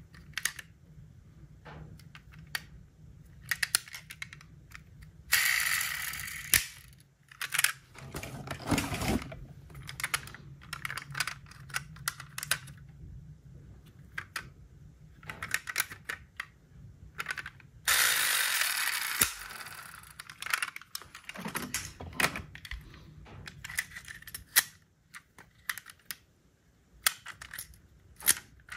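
Diecast metal toy cars handled in the hands: frequent small clicks and taps of metal and plastic as doors are opened and closed and the cars are turned over. Twice there is a louder, longer stretch of rattling and scraping, about five seconds in and again near the middle.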